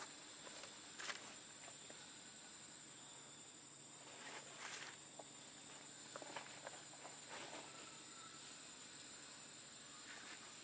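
Faint outdoor ambience: a steady, high-pitched insect drone, with a few soft crackling rustles in dry leaf litter.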